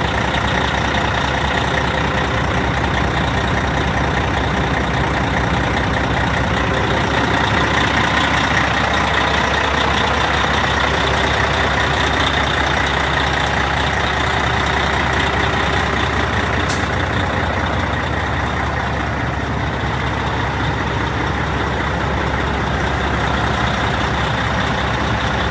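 Caterpillar C-15 ACERT diesel in a 2005 Peterbilt 379 idling steadily on a cold morning while building air pressure.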